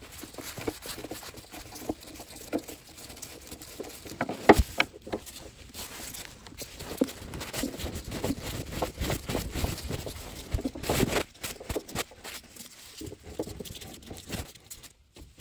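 Irregular handling noises from a wooden table being worked on: small clicks, taps and scrapes, with one sharp knock about four and a half seconds in and a brief rougher scraping around eleven seconds.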